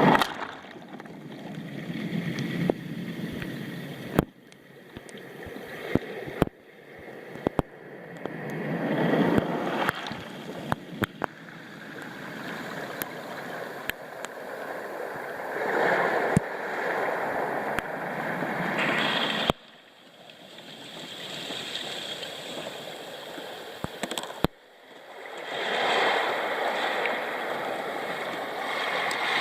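Waves of the Sea of Japan washing up a pebble beach and drawing back, surging every several seconds, with stones clicking and rattling in the wash. The sound drops off sharply a few times.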